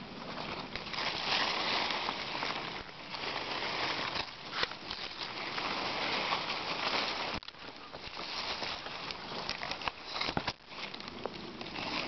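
Rustling and crackling of grass and leafy undergrowth brushed through on foot, with uneven footsteps and handling noise, a dense run of small clicks and crackles.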